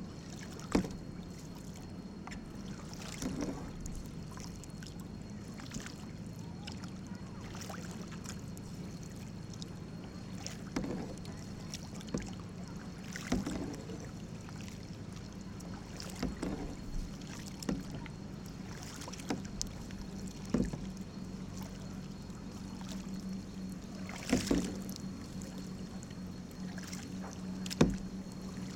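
Canoe being paddled: irregular paddle strokes and small splashes or knocks every few seconds, over a steady low hum.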